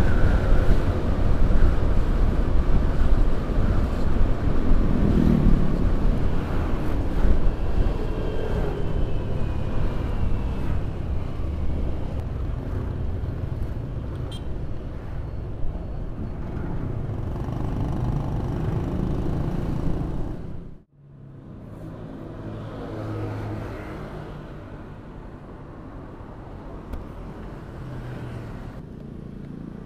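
Honda scooter being ridden through motorbike and truck traffic: engine and road noise, loudest in the low range. About two-thirds of the way through it cuts off suddenly and gives way to a quieter steady traffic sound with the scooter at a standstill.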